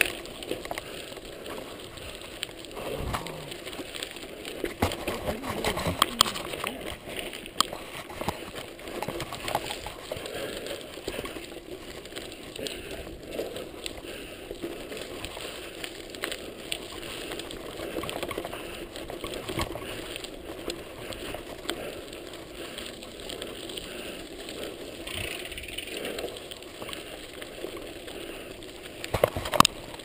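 Mountain bike rolling over a loose gravel road: steady tyre noise on the stones with frequent small clicks, knocks and rattles from the bike. There is a cluster of louder knocks near the end.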